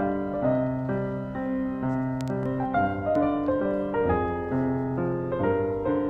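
Background piano music, gentle notes played at a steady, unhurried pace.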